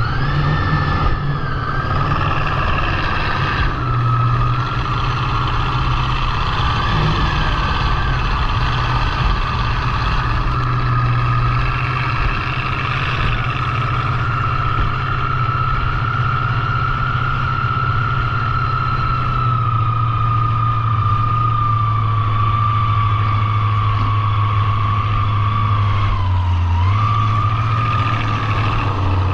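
Motorboat engine running steadily at speed: a low drone with a high whine over it. The whine sags slightly past the middle and dips briefly near the end.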